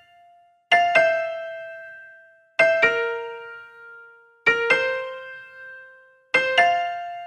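Background piano music: slow, sparse notes struck about every two seconds, each ringing out and fading before the next.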